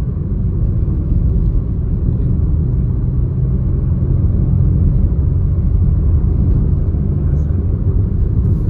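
A car driving at speed on the highway: a steady low rumble of road and engine noise.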